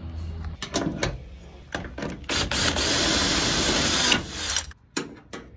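Hand-operated multi-tab glue-pull dent puller being worked against a truck's body panel: a few sharp mechanical clicks, then about two seconds of loud, harsh mechanical noise that cuts off suddenly about four seconds in.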